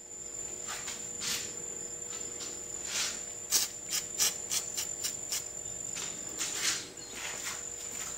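Repeated short hissing bursts of an aerosol can of penetrating oil, sprayed through a straw onto a Lawn-Boy mower carburetor's throttle shaft to free the gummed-up, stuck butterfly. A steady high-pitched whine runs underneath.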